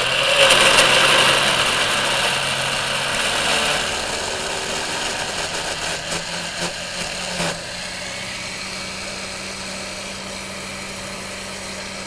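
Countertop electric blender running, blending a smoothie: a steady motor whir, loudest in the first few seconds, that settles to a higher, slightly quieter hum about seven and a half seconds in.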